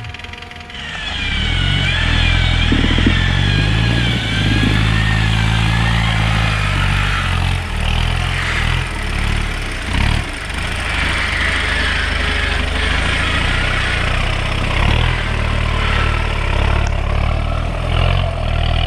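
Off-road 4x4 vehicle engine running under load, its pitch rising and falling as the throttle changes.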